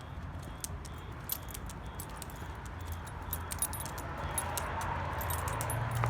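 A dog's metal collar tags jingling in short, irregular clinks as she walks, over a steady low hum that swells near the end.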